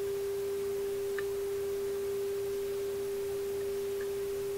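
Steady, unbroken single-pitched test tone: a signal generator's audio modulation reproduced by a Marconi 201A tube radio while its IF trimmers are peaked during alignment. A faint tick sounds about a second in.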